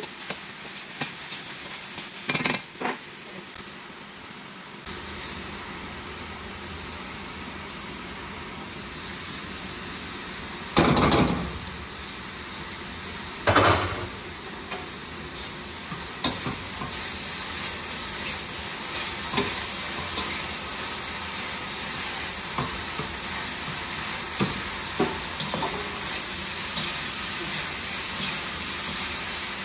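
Shredded cabbage and carrot stir-frying in a hot wok: a steady sizzle, with metal tongs scraping and clicking against the pan. Two louder bursts of sizzling about eleven and thirteen seconds in, as seasoning goes into the hot wok.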